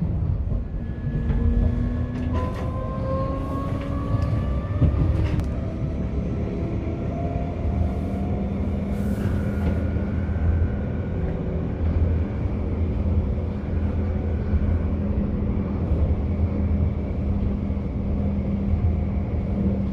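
Tram heard from inside the car: a steady low rumble of wheels on rails, with the electric motors' whine rising in pitch over the first several seconds as it speeds up, then running at a steady pitch.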